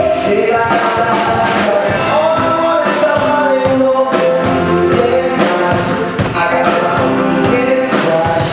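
A live band playing a song with a lead vocal, with a steady drum beat.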